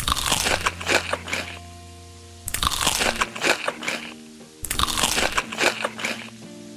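Crunchy food being bitten and chewed close to the microphone, in three crackling bouts of a second or so each, over background music.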